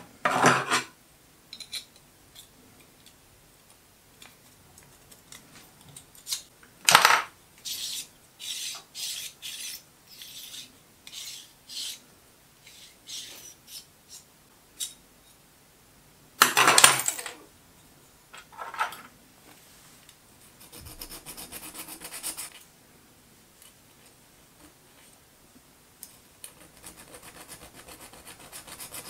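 Metal tools and a small steel part handled on a workbench: a series of short clinks and knocks, the loudest about two-thirds of the way in. Near the end comes a steady rubbing rasp as a hand tool works the small steel part to take off the high spots shown up by marker pen.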